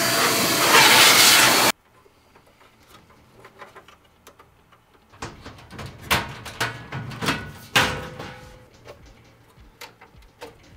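Handheld electric duster blowing with a loud, even rushing hiss that cuts off suddenly under two seconds in. Then scattered clicks, knocks and rustles as equipment in the metal network rack is handled.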